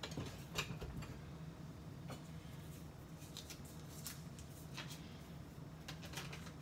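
Faint scattered clicks and rustles of small kitchen items being handled, over a steady low hum.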